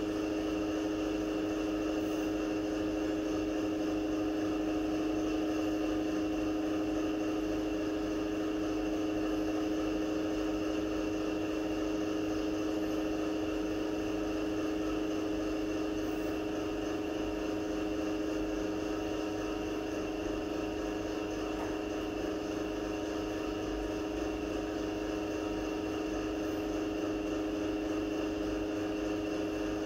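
Steady, unchanging mechanical hum with one strong low tone and several fainter higher tones above it.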